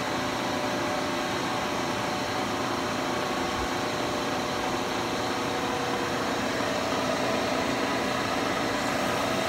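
CNC milling machine cutting metal with a two-flute roughing end mill: a steady run of spindle and cutting noise with faint steady tones, one of which grows a little stronger in the last few seconds.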